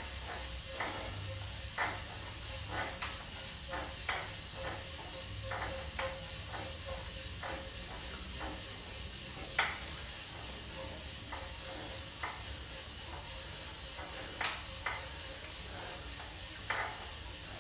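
Scattered light clicks at an uneven pace, about one or two a second, over a faint steady hiss and low hum.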